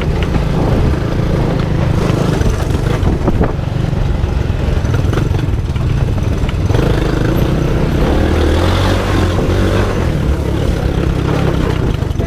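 Small off-road vehicle engine running steadily, with a few short knocks and clatter over it.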